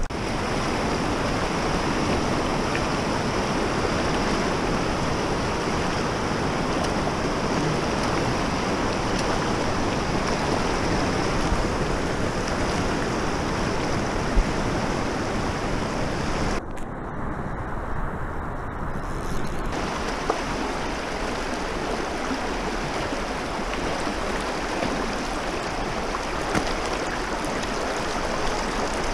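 Rushing water of river rapids, a steady rush with a few short splashes. For about three seconds past the middle the rush turns duller, with the highs cut away.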